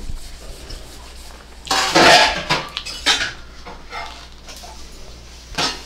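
Close-up eating noises: a few short crunching, clattering bursts as a grilled avocado sandwich is bitten and handled, the loudest about two seconds in and a brief one near the end.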